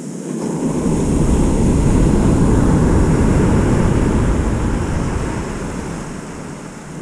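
Wind buffeting the microphone over the rush of ocean surf, swelling about a second in and easing off near the end.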